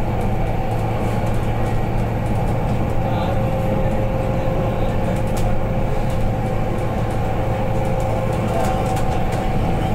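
Steady cabin noise of a BYD K9UB battery-electric bus on the move: road and tyre rumble, with a steady whine from the electric drive.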